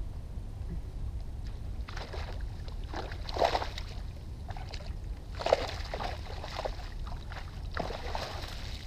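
Water splashing and sloshing in several bursts as a cast net full of tilapia is hauled out of shallow lagoon water, the netted fish thrashing at the surface.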